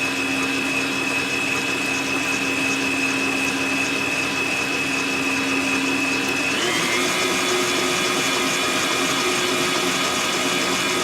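HOWORK 8.5-quart 660 W tilt-head stand mixer's electric motor running with a steady whine, which steps up to a higher pitch about two-thirds of the way through as the speed is turned up.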